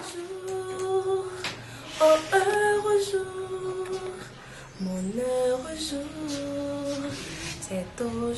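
A woman singing a slow melody unaccompanied, in long held notes that glide from one pitch to the next.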